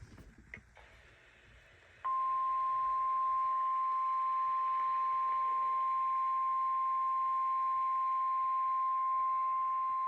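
NOAA Weather Radio 1050 Hz warning alarm tone: one steady pure tone that starts about two seconds in, after a faint radio hiss. It is the signal that a warning message follows.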